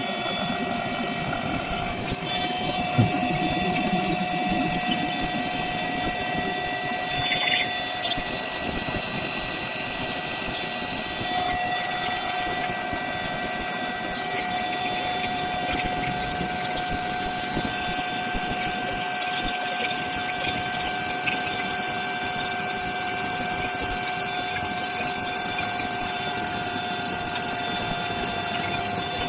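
Electric air pump running steadily with a level whine as it inflates the main air chambers of an inflatable PVC boat.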